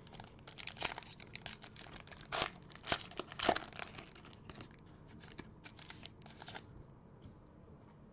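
Foil wrapper of a 2021 Panini Prestige football card pack being torn open and crinkled by hand: a run of sharp crackles lasting about six seconds, loudest in the middle.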